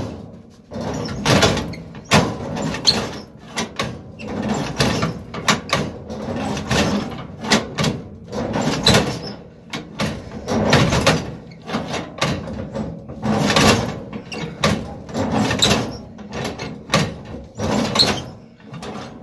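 Ford 493A side-valve engine turned over by hand on the starting handle, a surge of noise with each swing coming irregularly about every one to two seconds; it does not catch.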